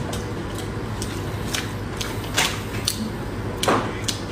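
Chopsticks clicking and tapping against dishes while picking up food: a run of short, sharp clicks, two of them louder past the middle.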